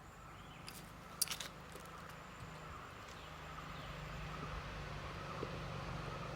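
Faint birds chirping over a steady low rumble that slowly grows louder, with a few sharp clicks about a second in.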